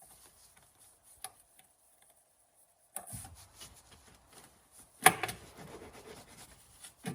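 Plastic tail light assembly being pulled and worked loose from its clips, with rubbing and scraping and a sharp pop about five seconds in and another near the end.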